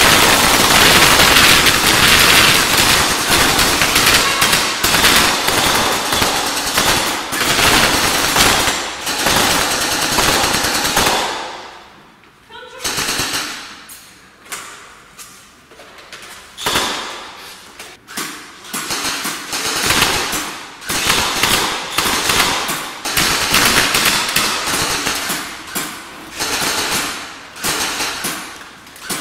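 Automatic rifle fire: dense, sustained rapid shooting for the first eleven seconds or so, a short lull around twelve seconds, then repeated short bursts with gaps between them.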